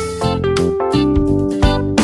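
Instrumental background music: held melodic notes over a steady beat.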